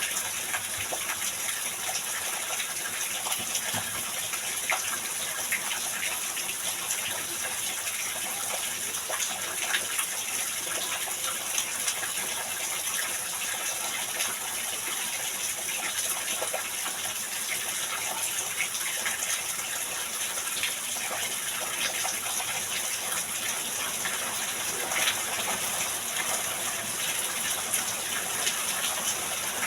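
Heavy rain falling steadily: a dense, even hiss with many small drop ticks scattered through it.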